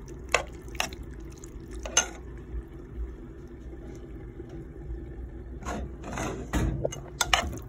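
Metal spoon stirring penne pasta and shredded cheese in a pan: wet squelching of the creamy pasta with a few sharp clicks of the spoon against the pan, busier near the end, over a steady low hum.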